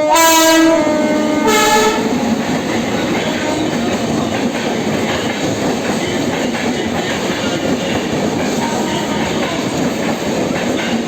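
Indian express train arriving: the locomotive's horn sounds two blasts, the first ending under a second in and a shorter one about a second and a half in. After that comes the steady rumble and clatter of the coaches' wheels on the rails.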